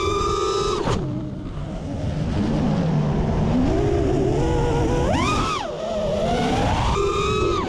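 FPV racing quadcopter's four brushless motors (RCX RS2206 2400kv on 5-inch tri-blade props) whining as the throttle changes: held high at first, chopped about a second in, punched up again to a peak around five seconds, dropping, then climbing and holding high near the end. A steady rush of wind over the onboard camera's microphone runs beneath.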